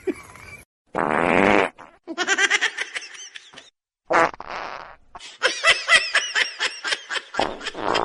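A short buzzing fart sound, then a run of rhythmic laughter; this happens twice, with the second laugh longer.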